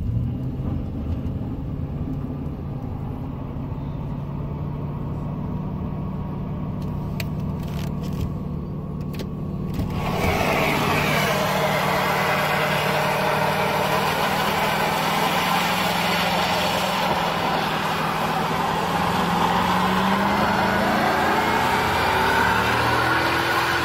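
GMC pickup's 4.8-litre V8 running at steady high revs during a burnout on a snowy lot. About ten seconds in a loud hiss joins it as the spinning rear tyre throws snow, dirt and smoke, and near the end the engine revs climb.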